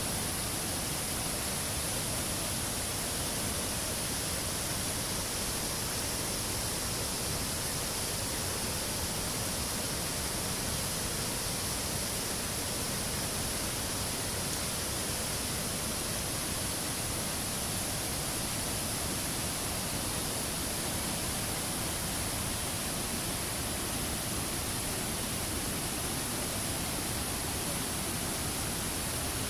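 Curug Cimarinjung waterfall: a steady rush of falling water, even and unbroken.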